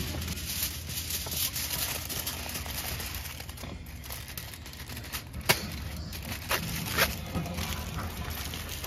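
Aluminium cooking foil crinkling as it is pulled off the roll, torn against the box's cutter edge and scrunched around a potato, with two sharp snaps a little past halfway.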